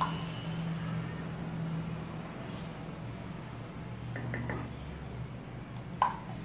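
Steel spoon clinking against a stainless steel pot of kheer: a sharp clink at the start, a few light clinks about four seconds in while stirring, and a loud ringing clink near the end. A steady low hum runs underneath.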